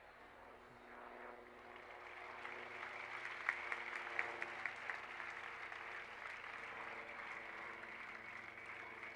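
Crowd applauding, faint and building after a second or two, with a handful of sharper single claps near the middle.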